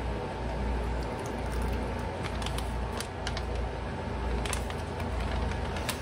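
Faint plastic crinkles and a few light ticks from a zip-top bag and mixing bowl as barbecue sauce is poured over chicken chunks, over a steady low hum.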